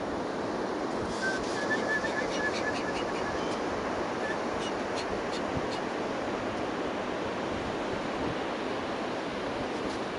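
Ocean surf breaking steadily on a sandy beach, with some wind on the microphone. About a second in, a short run of faint high chirps and clicks comes and goes over a few seconds.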